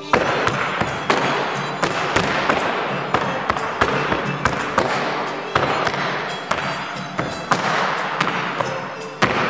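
A folk dancer's stamps and boot slaps on the stage floor: sharp hits about every half second, irregular, over a dense noisy wash.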